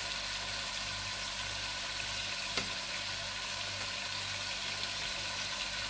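Chicken pieces, just lifted from the stock, sizzling in hot oil and onions in a cooking pot: a steady frying hiss.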